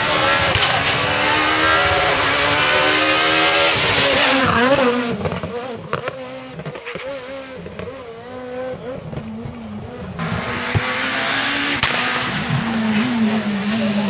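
Renault Clio S1600 rally engines at full throttle, the pitch climbing and stepping down through quick gear changes for the first few seconds. After a quieter stretch in the middle, another car's engine comes in loud near the end.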